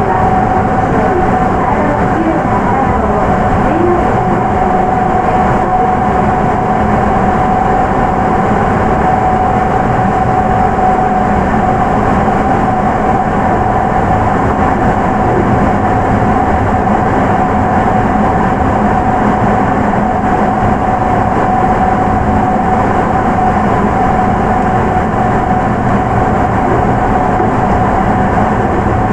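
Sapporo Municipal Subway 9000 series rubber-tyred train with Hitachi IGBT VVVF traction equipment running at a steady speed through the tunnel: an even, loud rumble with a steady whine that holds one pitch.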